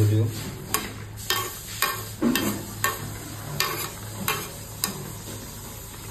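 Steel ladle stirring a simmering curry in an aluminium kadai, clinking and scraping against the pan about eight times in quick succession, over a low sizzle. The clinks stop about five seconds in.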